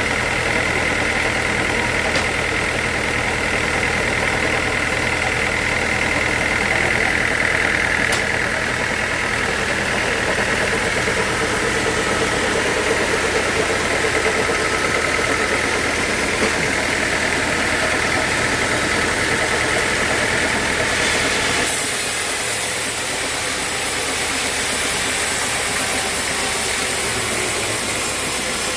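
Sawmill saw and its drive motor running steadily while sawing a teak log, with a steady whine over a low rumble. About three quarters of the way through the rumble drops away suddenly and a brighter hiss takes over.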